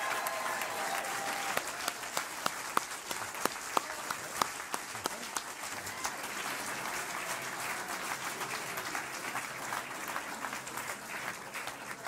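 Audience applauding steadily, with a few nearby claps standing out sharply in the first few seconds.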